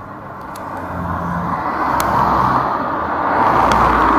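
A motor vehicle driving close by on a city street: a rushing noise with a low rumble, growing louder over the first two seconds and then staying loud.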